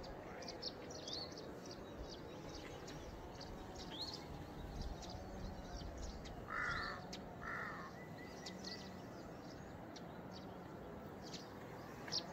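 Quiet outdoor birdsong: small birds giving short high chirps on and off, with two louder harsh calls about six and a half and seven and a half seconds in.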